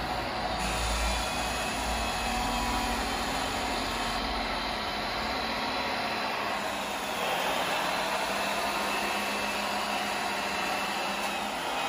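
Electric drive motors and gearing of a radio-controlled model vehicle whining as it works, the high whine sliding up and down in pitch over a steady hiss.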